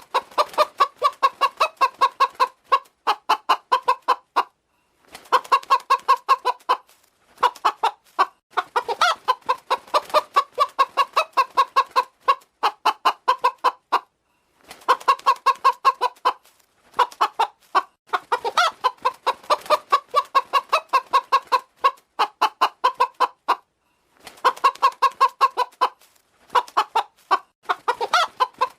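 Hen clucking in rapid runs of several clucks a second, broken by brief pauses.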